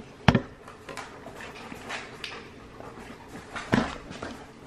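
Dog panting close to the microphone, with a sharp knock about a third of a second in and a heavier thump near the end.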